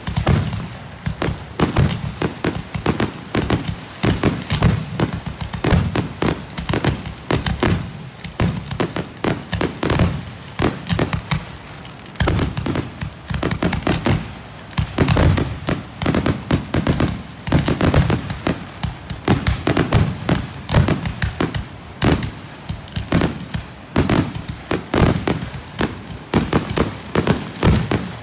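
Fireworks finale: aerial shells bursting in a dense, unbroken barrage, several bangs a second.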